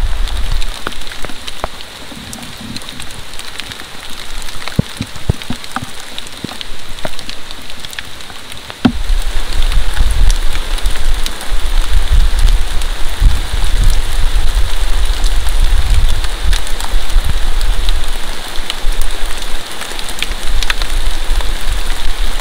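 Steady rain falling on a forest: an even hiss with scattered close drips and drop hits. A low rumble lies under it for the first couple of seconds and again from about nine seconds in, where the sound gets louder.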